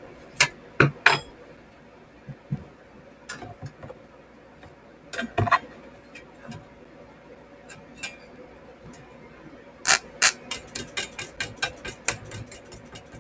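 Thin sheet-steel drive chassis clicking and clunking as it is handled and set down on a wooden bench, with a few separate knocks. Near the end comes a quick run of sharp ticks, several a second, as the lead of a homemade capacitor welder is tapped against the bare metal. A faint steady tone runs underneath.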